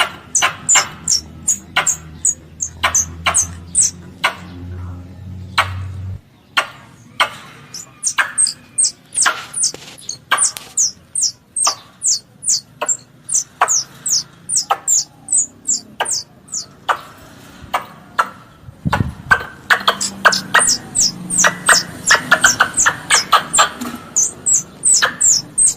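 Squirrel calls used as a lure: a long series of sharp, high chips, each a quick falling note, repeated a few times a second in uneven runs with a short pause about two thirds of the way through. A low hum sits under the first several seconds.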